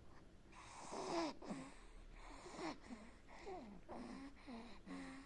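Fast, wheezy snoring from a sleeper. A longer noisy breath comes about a second in, then short breaths about twice a second, each with a brief squeaky whistle.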